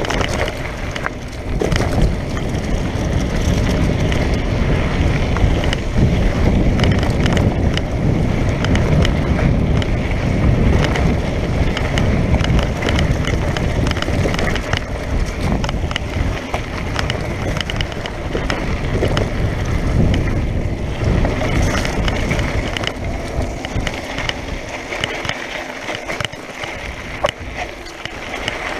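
Mountain bike riding fast down a loose, sandy dirt trail: steady tyre noise on the dirt and gravel, with frequent knocks and rattles from the bike over bumps, and wind on the microphone.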